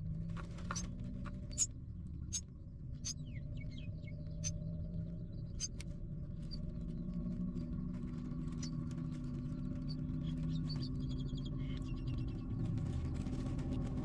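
Nestlings in the nest giving faint, high, scattered cheeps and clicks, begging calls, with a quicker run of cheeps near the end, over a steady low hum.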